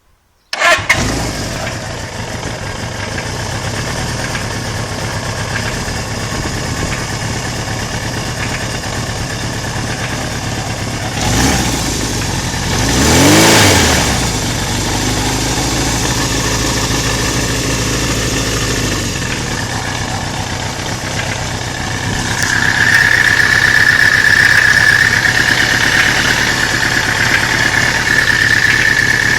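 1983 Suzuki GS550MD's air-cooled inline-four starting suddenly and settling into an idle with a knock in time with the engine, a knock that is heard only at idle. It is revved once briefly, rising and falling in pitch, and a steady high-pitched whine joins for the last several seconds.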